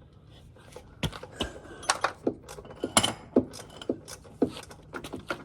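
Irregular metal clinks and knocks, about a dozen in five seconds, from small screws and hand tools being handled and set down.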